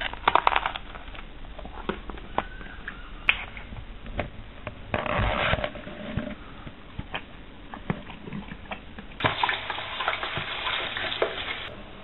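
A bite into a crusty baguette roll with a herring in it: a burst of crackly crunching, then irregular crunching, clicks and rustling as it is chewed and handled.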